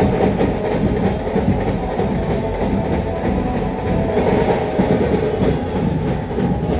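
Loud Ganesh procession music and drumming, distorted and blurred into a steady dense din.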